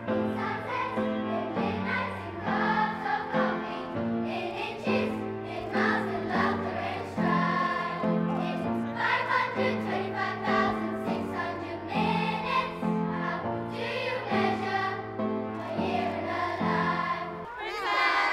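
A children's choir singing in unison, accompanied on an upright piano. Near the end it cuts to children cheering and shouting.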